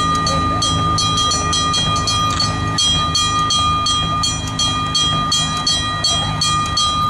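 Antique pumping machinery running: a steady low rumble under several steady, whistle-like high tones, with a fast regular clicking of about three clicks a second.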